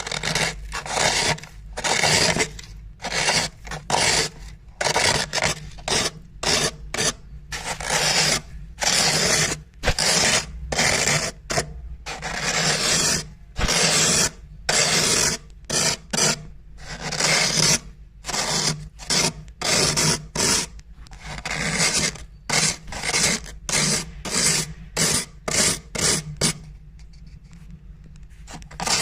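Thick freezer frost being scraped with a glass edge: crunchy, rasping scraping strokes, some short and quick in a row and some drawn out, with a short pause near the end before it resumes.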